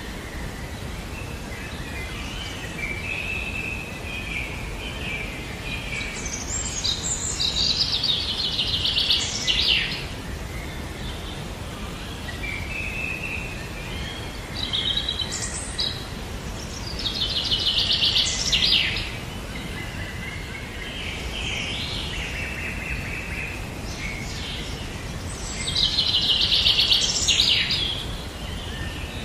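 Songbird song in repeated phrases, each with warbling notes and a fast, high trill, coming about every nine to ten seconds over a steady background hiss.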